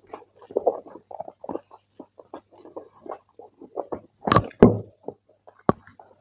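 Close-miked eating by hand: fingers squishing and mixing rice with kidney bean curry, and wet chewing and lip smacking in quick, irregular clicks. The loudest burst comes about four seconds in, as a handful of rice goes into the mouth, and a sharp smack follows near the end.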